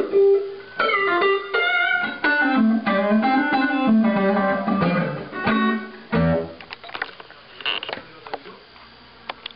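Electric guitar played through a homemade fixed-wah and splitter/mixer effect circuit: a quick run of single notes that stops about six and a half seconds in. A few scattered clicks and knocks follow.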